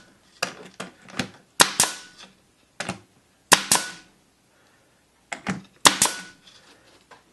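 Tacwise pneumatic brad nailer firing brads one after another along a glued pallet-wood strip: a series of sharp cracks, each with a short hiss of air, roughly a second apart.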